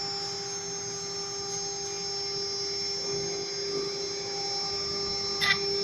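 BMG-1325 CNC router running: a steady hum with a constant high whine over a light hiss.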